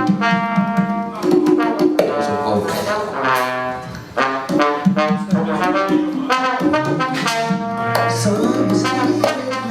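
Live band with a horn section, trumpet and trombone, playing held brass notes over drum and percussion hits during a sound check.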